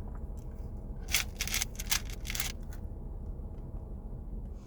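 Several short crisp scrapes and rustles in quick succession, about a second in, from handling the food and its packaging while eating, over a low steady hum.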